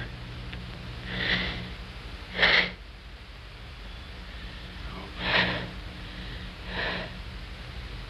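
Four heavy breaths, a second or more apart, over a steady low hum in an old film soundtrack.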